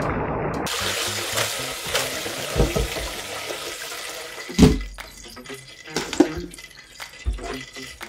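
Hot oil dripping and trickling from a wire fry basket of freshly deep-fried food back into the pot, thinning out after the first second. Then a few knocks of the metal basket, the loudest about four and a half seconds in.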